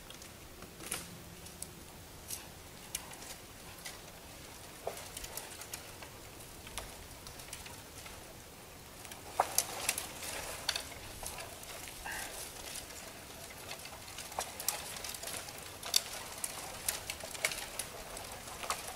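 Quiet woodland ambience: scattered light clicks and rustles, growing busier about halfway through, with a brief bird chirp.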